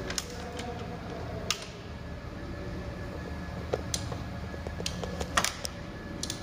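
A few sharp metal clicks and taps of a hand tool working on a bolt on the underside of a scooter engine, with a small cluster of them about five seconds in, over a steady low hum.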